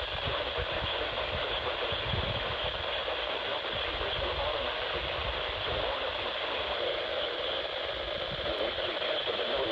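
Weather radio receiver giving out a steady hiss of radio static.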